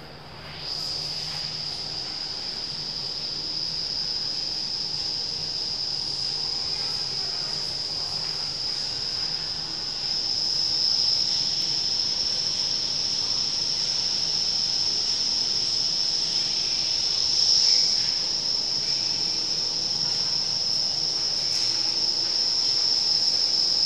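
Indoor vertical wind tunnel running: a steady rush of air through the flight chamber with a high-pitched whine over it. It comes up sharply about a second in and gets louder again about halfway through.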